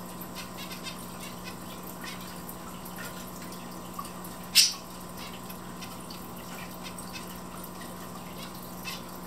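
Zebra finches moving about a wire cage: scattered faint ticks and taps, with one short, sharp, loud sound about four and a half seconds in.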